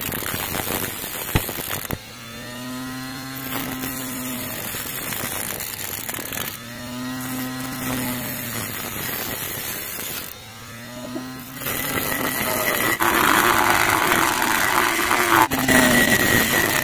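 Homemade DC-motor angle grinder running, its abrasive cutting disc grinding through a thin metal strip and throwing sparks. Three times the grinding eases and the motor's whine shows for a second or so. In the last few seconds the grinding grows louder.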